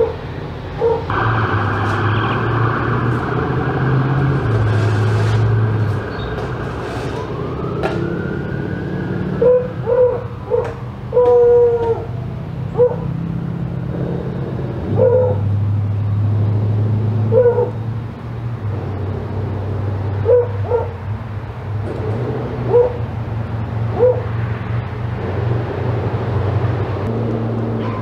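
A siren wailing, rising and falling once about eight seconds in, with short whining calls repeating every second or two and a low steady hum underneath.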